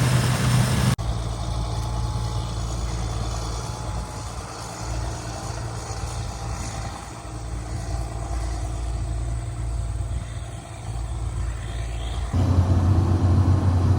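Combine harvester engine running with a steady low drone. It drops abruptly about a second in and returns louder near the end.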